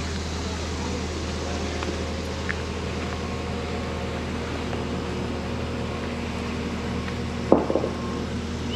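Skid steer engine running steadily at a constant speed while it holds a truss on its jib, with one sharp knock about seven and a half seconds in.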